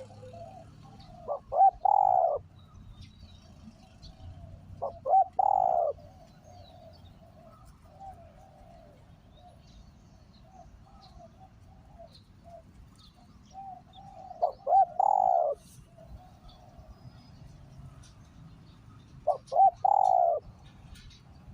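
Spotted dove cooing, the call of a decoy bird: four loud calls a few seconds apart, each a couple of quick short notes running into a longer falling coo. Fainter cooing goes on between them.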